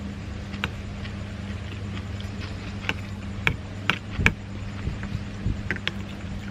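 Metal fork and spoon clinking against a glass plate, a scatter of light ticks that come thickest past the middle, the loudest a little after four seconds in. A steady low hum lies underneath.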